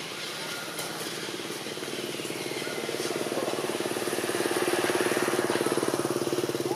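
A small engine running steadily with a fast even throb, getting louder from about halfway through.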